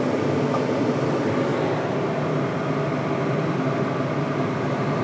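A fan running with a steady, unchanging hum.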